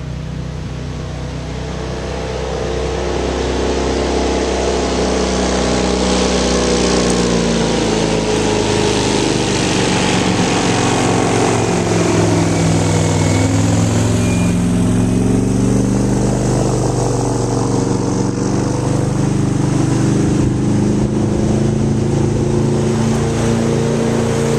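An airboat's engine and propeller running. It grows louder over the first few seconds and then stays loud, its pitch sinking around the middle and climbing back up later.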